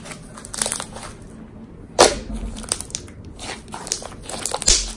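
Glue-and-lotion slime being kneaded and squeezed by hand, making irregular small wet clicks, with a sharper click about two seconds in and another near the end. The purple colouring is being worked through it.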